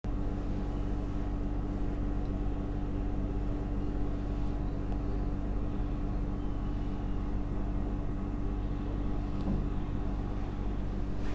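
Steady low mechanical hum with one constant tone over it, unchanging throughout.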